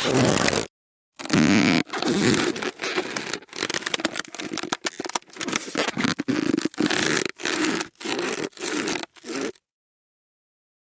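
Inflated rubber balloon rubbed by hand, giving a run of squeaky creaks of varying length, some drawn out over about a second and others short and quick.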